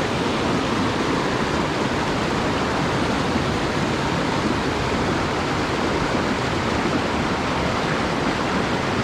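Small mountain creek's water rushing steadily over rocks, an even, unbroken rush.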